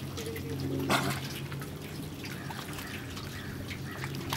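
Water splashing and dripping as a dog paddles through a lake, with one louder splash about a second in. A steady low hum runs underneath.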